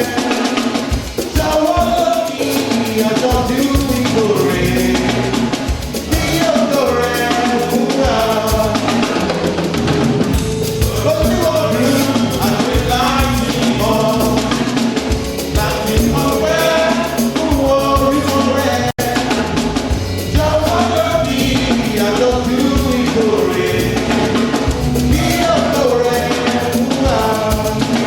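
Gospel-style praise song: voices singing a melody over a band with drum kit and bass, with a momentary dropout about two-thirds through.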